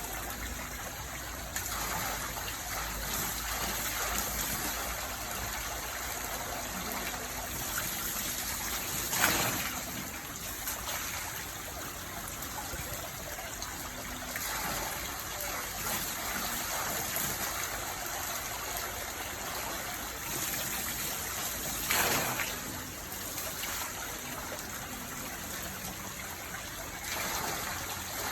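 Water running and trickling steadily, like a small stream or flowing channel. It is briefly louder twice, about 9 and 22 seconds in.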